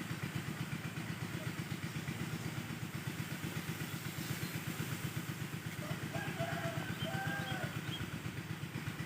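A small engine running steadily at low speed, an even rapid pulsing.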